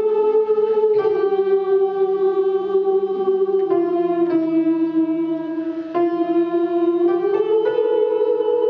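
Women's choir singing long held notes in a slow phrase. The melody steps gradually lower through the middle and rises again near the end.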